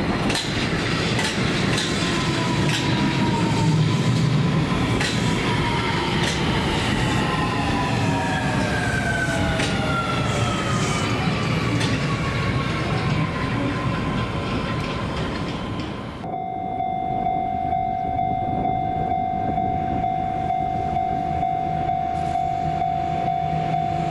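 Osaka Metro 30000A series electric train running, its traction-motor whine falling steadily in pitch as the train slows, with wheel clicks over the rail joints. About two-thirds of the way through the sound cuts off abruptly and a steady tone takes over.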